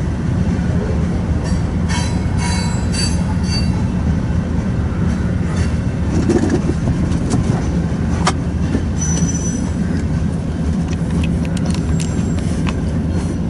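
Freight cars of a BNSF manifest train rolling past with a steady low rumble, high wheel squeals about two seconds in and again near nine seconds, and sharp clicks from the wheels later on.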